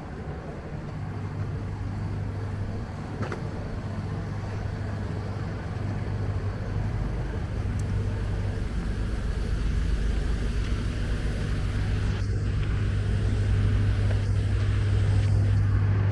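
City street ambience dominated by a steady low hum, growing a little louder toward the end, with a few faint ticks.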